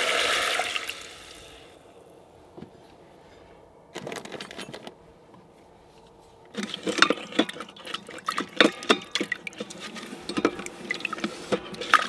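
Beef broth pouring into a hot stainless-steel Instant Pot insert and sizzling as it deglazes the seared bottom, dying away within about two seconds. From about the middle on, a silicone spatula scrapes and taps against the pot bottom, lifting the browned glaze.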